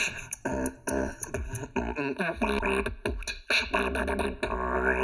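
Beatboxing: a steady rhythm of mouth-made kick and snare hits mixed with held, pitched vocal bass tones.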